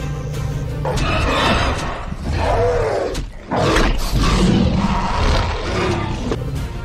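Film sound effects of a Tyrannosaurus rex and a Spinosaurus roaring as they fight: several long, rough roars that glide in pitch, with a short break a little past halfway. The sound cuts off sharply near the end.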